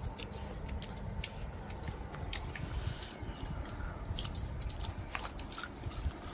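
Several people biting and chewing firm mango slices dipped in salt and chili, heard as a scatter of short, crisp clicks.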